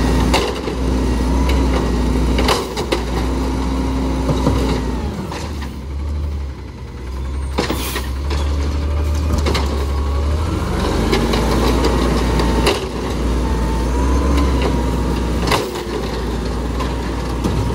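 Automated side-loader garbage truck working carts: its diesel engine runs up while the hydraulic arm lifts and dumps, with a rising and falling hydraulic whine. Sharp bangs come several times as carts are slammed and shaken against the hopper.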